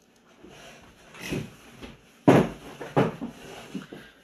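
Knocks and thumps of someone getting up from a table and moving about, with a sharp, loud thump a little over two seconds in and a smaller knock about a second later.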